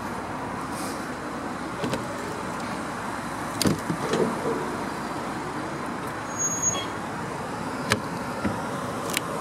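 Steady outdoor background noise, a low rumble and hum of the kind that traffic or running engines make, with a few scattered light clicks and knocks.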